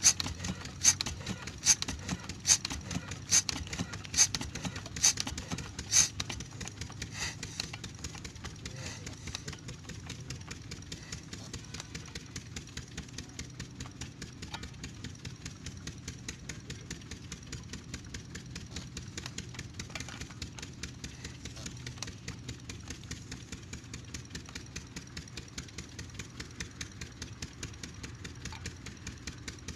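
Old single-cylinder Kirloskar 8 hp diesel engine, used for pumping irrigation water, running with a steady fast beat. For the first six seconds loud sharp knocks come about once a second, then it settles into an even run.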